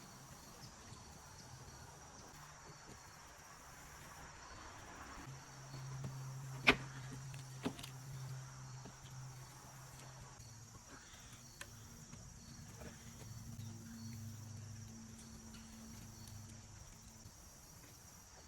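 Faint outdoor ambience of insects chirring steadily at a high pitch. A low engine hum, likely a distant vehicle, swells and fades twice. Two sharp clicks come about a second apart near the middle.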